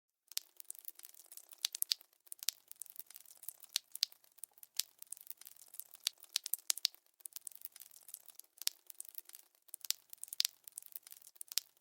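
Gore sound effect of tearing flesh: dense, irregular crackling and crinkling with many sharp snaps, starting a moment in.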